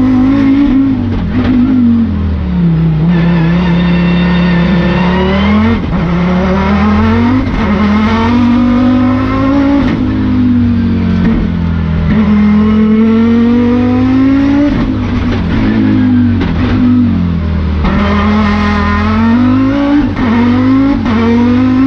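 Audi S2 R Quattro's turbocharged 2.2-litre five-cylinder engine, heard from inside the cockpit, revving hard: its pitch climbs and drops again and again as the car pulls through the gears and lifts for corners.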